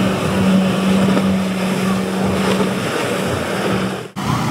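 Motorboat engine running with a steady drone over the rush of water and wind. The sound breaks off abruptly near the end.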